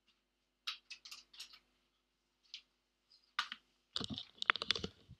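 A few scattered sharp clicks, then a dense clatter of clicks and knocks from about four seconds in, as a person comes back to a workbench and handles things on it.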